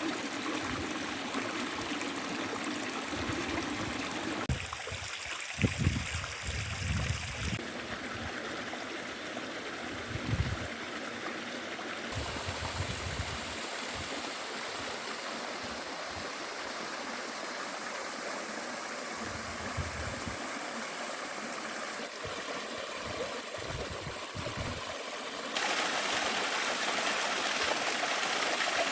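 Stream water running steadily, its level and tone shifting abruptly several times. A few low thumps and rumbles come in the first half, and the water is louder for the last few seconds.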